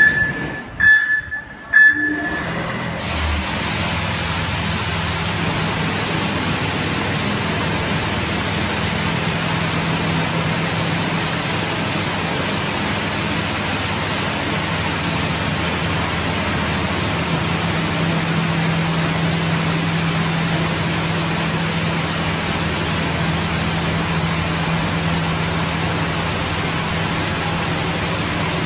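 Touchless automatic car wash machine running: a few short electronic beeps at the start, then the steady hiss of high-pressure water jets over a low, even pump hum.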